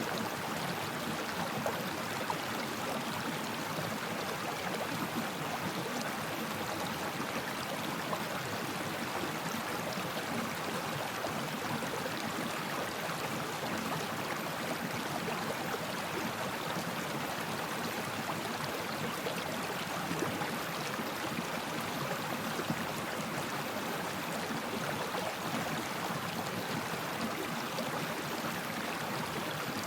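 Water flowing in a stream or river: a steady, even rush that neither builds nor fades.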